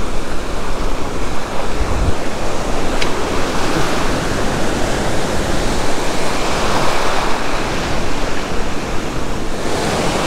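Ocean surf breaking, with foaming whitewash washing close by, swelling louder for a few seconds past the middle. Wind buffets the microphone.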